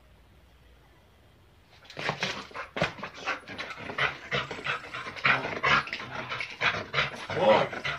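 German Shepherd panting hard in rapid harsh breaths while gripping and tugging a stick in bite work, starting about two seconds in.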